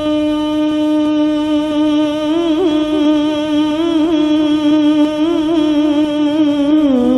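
A male qari's voice singing an Arabic qasida unaccompanied, drawing out one long note on the end of a line: steady at first, then ornamented with quick wavering turns from about two seconds in, and stepping down in pitch near the end.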